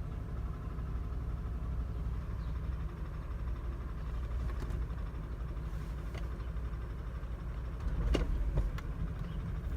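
Mercedes-Benz W124 engine idling in drive, a steady low hum with a rough, shaking idle, later traced to a faulty engine wiring harness. A couple of short clicks and a slight swell in the engine sound come about eight seconds in.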